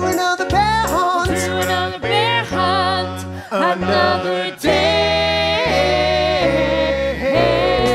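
A man and a woman singing a children's song over a musical backing with a steady bass line, ending on a long held note.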